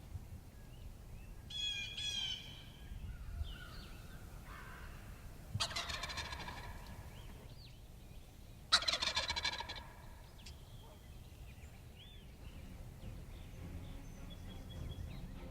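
Wild turkey gobbler gobbling twice, each gobble a quick rattling run of notes, the second about three seconds after the first and louder. Fainter bird calls come before and between them.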